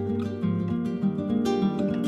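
Background music: an acoustic guitar playing plucked notes and chords.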